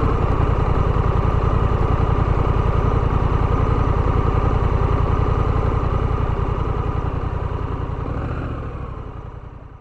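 Honda Rebel 1100's parallel-twin engine idling with an even, steady pulse, fading out near the end.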